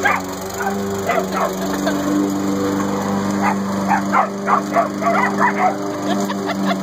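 Corgis barking and yipping at a running gas push lawn mower, in quick runs of short sharp barks. The mower's small engine drones steadily underneath.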